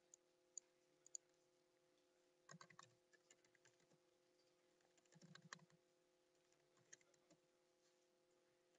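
Faint typing on a computer keyboard: a few single clicks in the first second, then two short runs of keystrokes a few seconds apart, over a steady low hum.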